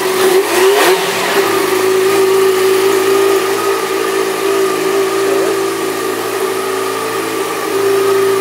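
2011 Yamaha FZ6R's 600 cc inline-four idling through its factory exhaust, with a brief rise and fall in pitch in the first second before it settles into a steady idle.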